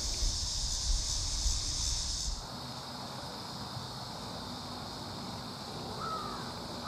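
Steady high-pitched insect chorus outdoors, with low wind rumble on the microphone for the first couple of seconds that stops suddenly. Two short bird calls sound near the end.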